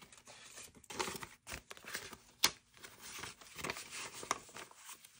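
Paper banknotes rustling and crinkling as they are handled and slid into cash envelopes, with scattered light clicks and one sharper click about two and a half seconds in.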